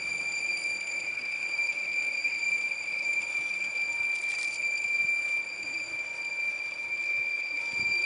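Train on the Bière–Apples–Morges railway running, with a steady high-pitched whine held at one pitch throughout.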